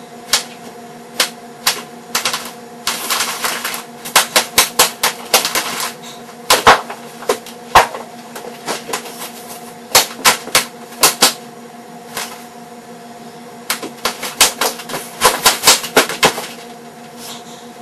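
A long irregular series of sharp knocks and smacks, coming in quick runs with short pauses between them, over a faint steady hum.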